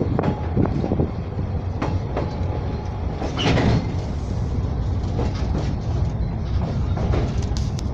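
Narrow-gauge children's railway train rolling along: a steady rumble with irregular wheel clicks and knocks over the rails.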